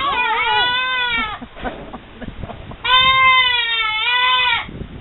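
Goat kid bleating for its mother: a long call that ends about a second and a half in, then a second long call from about three seconds in.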